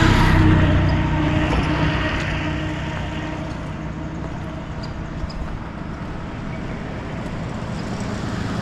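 A motor vehicle going by close to the microphone, its engine hum loudest at the start and fading away over the first two to three seconds, leaving a steady rushing noise.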